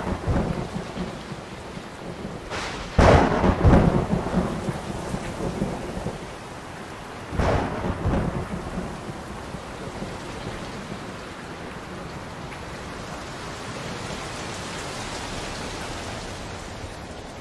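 Thunderstorm: steady rain with three peals of thunder in the first eight seconds, the loudest about three seconds in, then rain alone.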